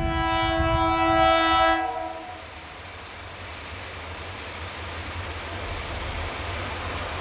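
Diesel locomotive air horn sounding one blast of about two seconds, several notes together as a chord, followed by the low rumble of the train, slowly growing louder.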